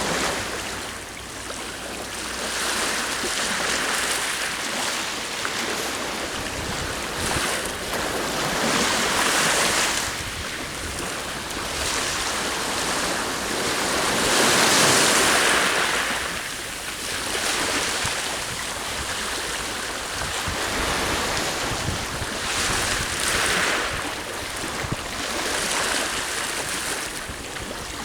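Sea waves breaking and washing on the shore, swelling and ebbing in several surges, the biggest about halfway through. Wind buffets the microphone underneath.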